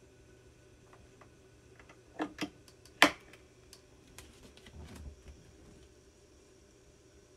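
A quarter-inch phone plug being pushed into the disc recorder's input jack: two light clicks, then one sharp metallic click about three seconds in as it seats, followed by a few softer ticks.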